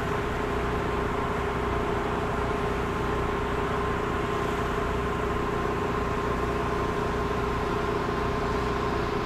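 Engine-driven spray pump of a soft-wash rig running at a steady speed with an even drone, under the hiss of the spray gun putting down bleach mix at low working pressure.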